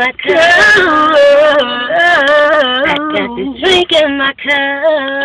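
Women singing, holding long wavering notes with no clear words.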